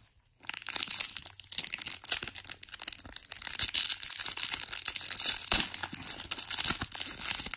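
Pokémon booster pack's foil wrapper being torn open and crinkled by hand: a dense, crackling rustle that starts about half a second in and goes on without a break.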